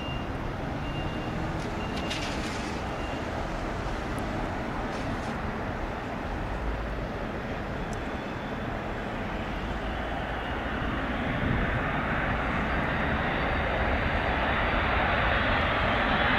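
Four Pratt & Whitney F117 turbofans of a Boeing C-17A Globemaster III on final approach: a steady jet rumble and hiss that grows louder as the aircraft comes closer.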